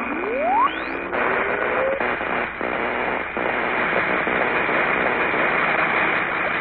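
Cartoon sound effect of an electric ray machine powering up: a rising whine in the first second or two, then a dense electrical crackle and buzz of sparking.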